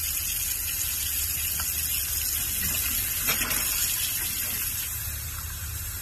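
RV kitchen faucet's hot tap running in a steady rush, with the trailer's water pump humming underneath, as the pump pushes the last water out of the hot line until the pink RV antifreeze comes through.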